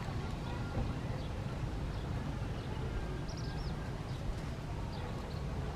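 Steady low rumble of wind on the microphone, with a few faint, short, high-pitched chirps, clustered about three seconds in.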